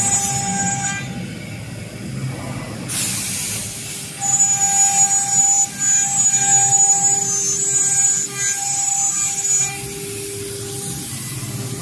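The two high-speed spindles of a double-head CNC router are running as their bits cut shapes into a wood board. They make a steady machine hum with a high whine that comes and goes. There is a short hissing rush about three seconds in.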